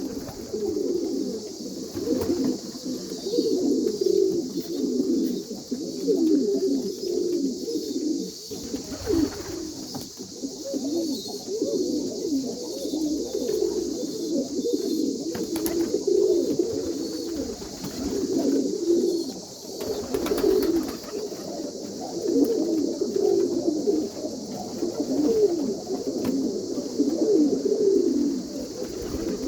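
Pigeons cooing in a continuous run of low, wavering calls.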